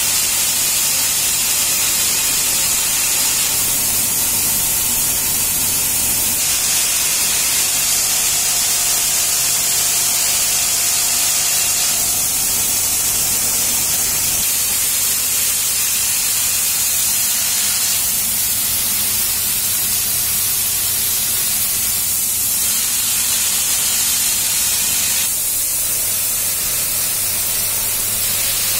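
Optical sorting machine for bolts and screws running at about 270 pieces a minute, giving a steady hiss with a constant low hum underneath.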